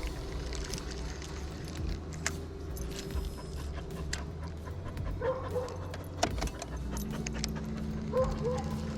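A dog whining in short high calls, three times, over a steady low hum, with a few light clicks.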